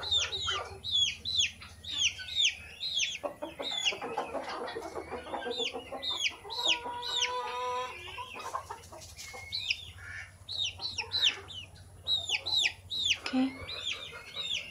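Chicks peeping steadily in quick, high, falling notes, with a hen clucking lower in the middle, as they peck at bread held out by hand.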